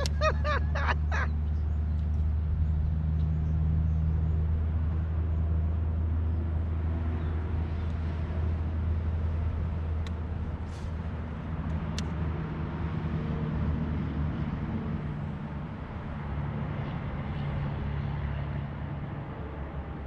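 A steady low motor hum, rising and falling slightly in strength, with a couple of faint light clicks near the middle.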